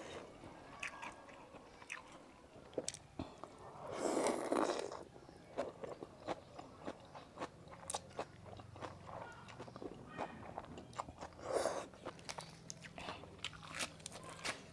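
Close-up eating sounds of a person eating Thai nam tok noodle soup: wet chewing and many small mouth clicks, with two longer, louder slurps, one about four seconds in and another about eleven and a half seconds in.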